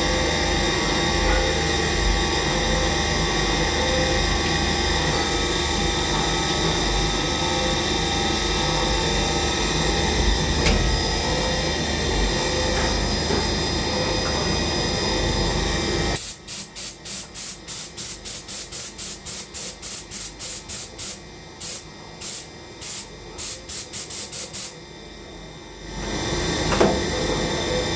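CNC vertical machining centre running a cut: steady machine noise with several whining tones, then about halfway through it switches to quick regular on-off bursts, about two or three a second. After a short lull near the end, the steady running resumes.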